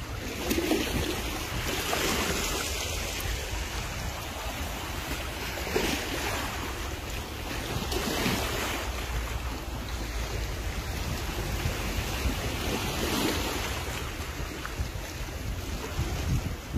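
Small sea waves washing and breaking among shoreline rocks and boulders, surging irregularly every few seconds, with wind rumbling on the microphone.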